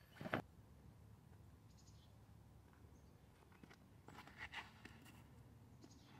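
Near silence in woods, broken by a short knock near the start and, about four seconds in, a quick run of scuffs and clicks: a disc golfer's footsteps on a concrete tee pad as he throws.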